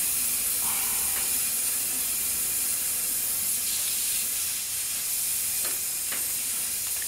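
Compressed air hissing steadily from a leak at the air hose fitting on the spark-plug-hole adapter that holds the cylinder pressurized, with two light clicks about six seconds in.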